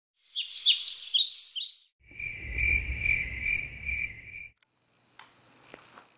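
Birdsong sound effect of quick, falling high chirps for about two seconds. Then a cricket chorus chirping in steady pulses, about three a second, over a low hum, until it cuts off about four and a half seconds in. The sequence is a day-to-night sound cue marking time passing.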